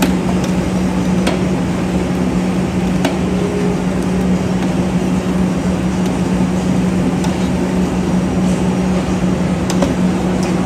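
Steady loud rushing roar with a constant low hum from a large commercial gas burner firing under a stockpot. A few faint clicks of the steel ladle against the pot are heard.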